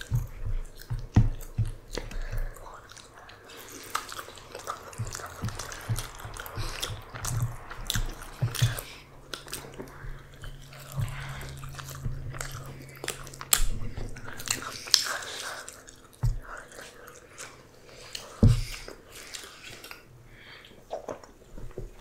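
Close-miked eating sounds: chewing and biting with many small wet mouth clicks, and a few low thumps.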